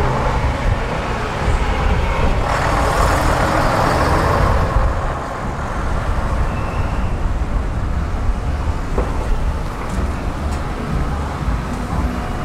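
Engine of a vintage half-cab double-decker bus running as it drives past and away, with road traffic around it; a louder rush of noise swells about two and a half seconds in and dies down a couple of seconds later.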